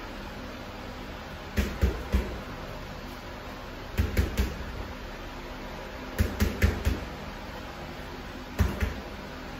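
Gloved punches landing on a hanging heavy bag in quick combinations of two to four hits: three about one and a half seconds in, three around four seconds, four around six seconds, and two near the end.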